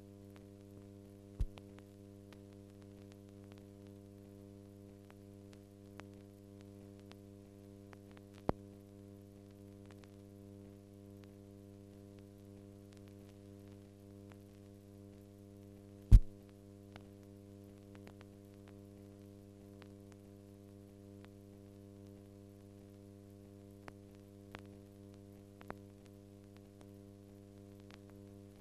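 Steady electrical hum with a stack of overtones on an old 1940 film soundtrack, broken by scattered clicks and pops, one sharp loud pop about 16 seconds in.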